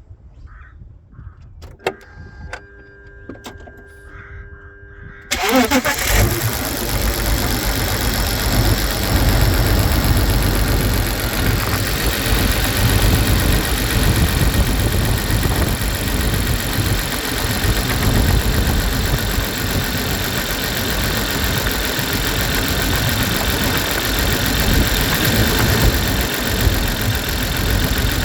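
BMW Z3 2.2i's 2.2-litre inline-six cold-started: a brief crank about five seconds in catches at once, and the engine then runs at a steady, loud idle. This is the cold-start idle the owner presents as misfiring.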